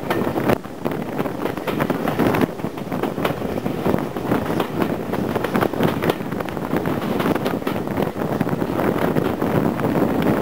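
Wind buffeting the microphone at the open window of a moving train, over the train's running noise.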